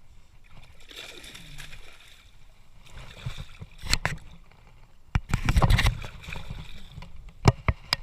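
Water sloshing and splashing with several sharp knocks. The loudest part is a burst of splashing a little after five seconds in, and three quick knocks come near the end.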